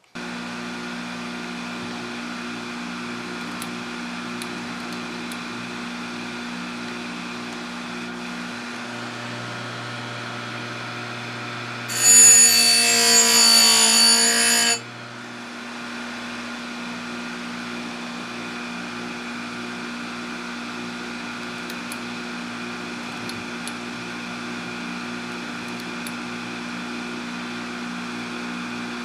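Electric chainsaw-chain grinder running with a steady motor hum and whine. About twelve seconds in, the wheel is brought down on a cutter tooth for about three seconds, a much louder, harsher grinding of stone on chain steel, and then the motor runs on alone.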